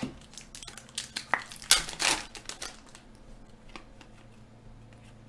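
Hands handling hockey trading cards and packaging, crinkling and clicking in a cluster about a second in, loudest around two seconds, then a single light click and quiet handling.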